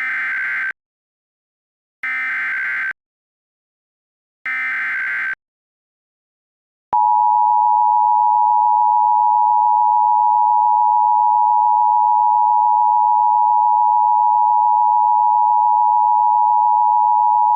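Emergency Alert System tones: three short bursts of SAME header data, each a harsh digital warble under a second long, about two seconds apart. After a short gap, the long steady two-tone EAS attention signal starts about seven seconds in.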